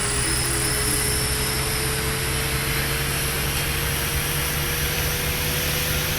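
TIG welding arc on stainless steel with SS308 filler: a steady hiss over a low electrical hum, with a faint tone slowly rising in pitch.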